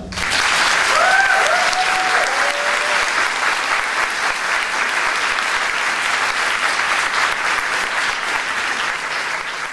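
Audience applauding, starting right away and going on evenly, with a brief whoop from someone in the crowd about a second in; the clapping tapers slightly near the end.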